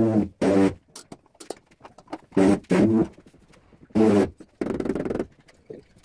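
Handheld tile vibrator buzzing in short bursts of a third of a second or so, mostly in pairs, pressed on a large ceramic floor tile to bed it into the adhesive; a rougher, longer buzz comes near the end, with small clicks and knocks in between.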